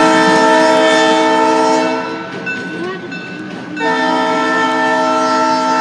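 Train air horn sounding two long blasts, a chord of several notes held steady. The first blast ends about two seconds in; the second starts nearly two seconds later and is still sounding at the end.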